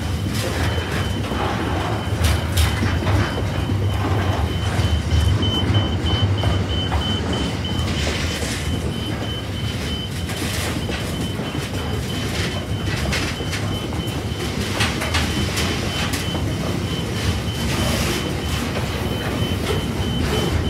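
Freight train's loaded container wagons rolling past: a steady low rumble of wheels on rail, with irregular clicks and knocks and a faint high whine that comes and goes.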